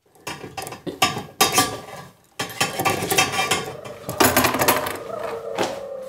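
Steel handcuffs and their chain clinking and clicking as hands work the cuff on a wrist: a run of sharp metallic clicks and rattles, growing busier after about two seconds.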